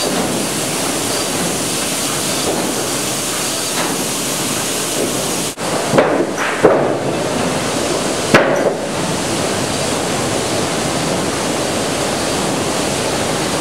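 Sawmill timber-sorting line running loud and steady, with three sharp wooden knocks from about six to eight and a half seconds in as sawn planks are dropped and sorted.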